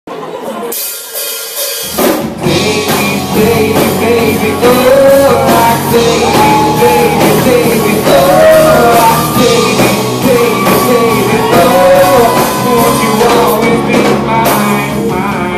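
Live rock band playing at a sound check, a singer's voice over drum kit and bass. It starts thinner and quieter, and the full band comes in loud about two seconds in.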